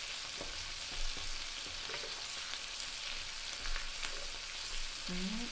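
Beef short ribs, asparagus and onion sizzling steadily on an electric grill pan, with a few light clicks as tongs move the pieces.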